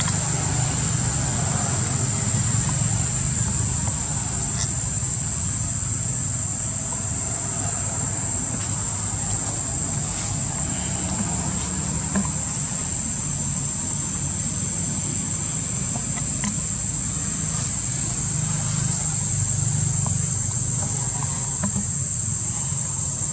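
Insects droning in a steady high-pitched chorus, with a low rumble underneath.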